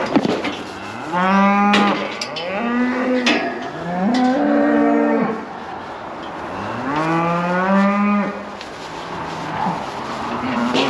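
Cattle mooing repeatedly, with about half a dozen long calls that rise at the start and then hold, some overlapping. The calves and their mothers are penned apart. A sharp knock comes right at the start.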